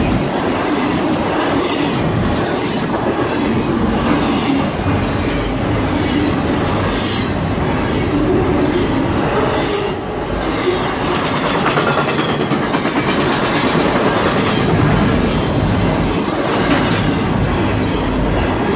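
Double-stack intermodal freight train rolling past at close range: the steady rumble and clickety-clack of the well cars' wheels over the rail joints.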